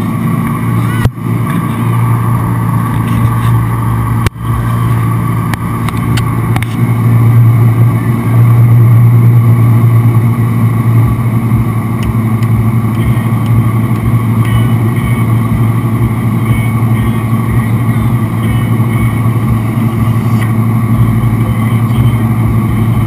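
Inboard engine of a wake-surf boat running steadily at towing speed, a steady hum, with water churning in the boat's wake.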